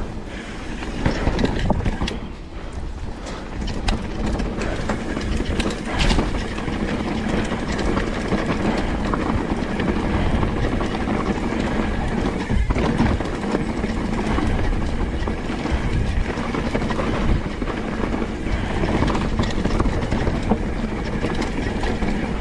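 Mountain bike descending a dirt trail at speed: tyres rolling over rough ground, with the chain and frame rattling and clattering and wind rushing over the microphone.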